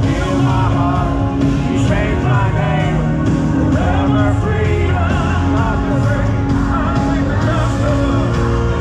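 Live worship band playing in a large hall: a full band with bass and sustained keys, and a singer's voice over it.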